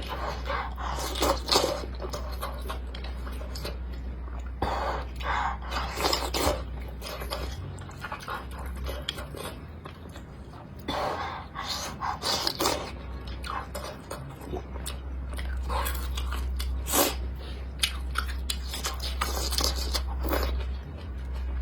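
A person eating close to the microphone: irregular bites and chewing, some of them crunchy, over a steady low hum.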